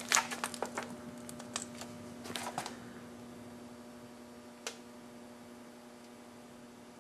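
Faint handling noise: a scatter of light clicks and crunches in the first three seconds and a single click near five seconds, over a faint steady hum.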